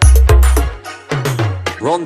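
Loud DJ dance music played through a large outdoor sound system, with heavy booming bass kicks. The deep bass drops out a little under a second in, leaving lighter beats and a rising pitched glide near the end.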